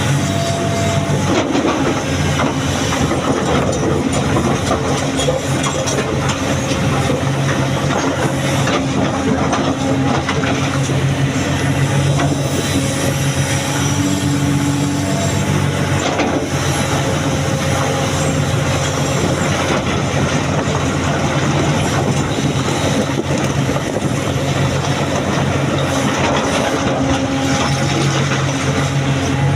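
Excavator's diesel engine running steadily under load, with a dense, irregular clatter of knocks over it.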